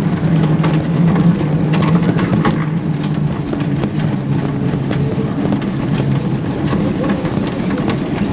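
A vehicle engine idling with a steady low hum, over street noise with scattered clicks and knocks.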